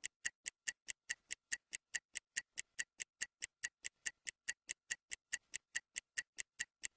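Stopwatch ticking sound effect: a fast, even tick about five times a second, timing a 10-second rest between exercises.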